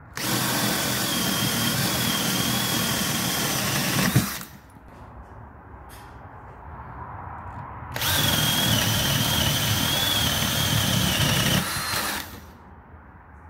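Cordless drill boring two holes right through a thick plank of dressed timber: two runs of about four seconds each, the motor whining steadily as the bit cuts through the wood, with a pause of a few seconds between them.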